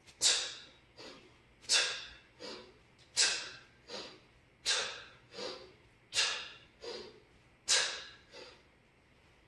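A man's sharp, forceful breaths out, one with each one-arm kettlebell swing: six about a second and a half apart, each followed by a quieter breath.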